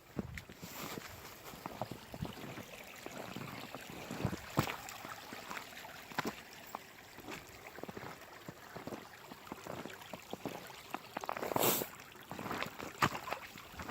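Footsteps crunching in snow, irregular steps with rustling, as someone walks down a snowy slope, with a longer, louder scuff near the end.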